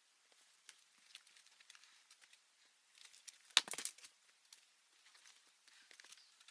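Scattered light crackling and rustling of dry forest debris, with a louder crunching burst about halfway through.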